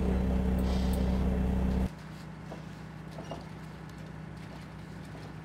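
Fishing boat's engine running with a steady low drone, which drops abruptly to a quieter, more distant hum about two seconds in, with a few faint knocks.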